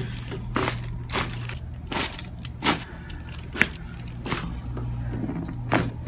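Spinal joints popping under chiropractic adjustments: a series of short, sharp cracks, about one a second, over a steady low hum.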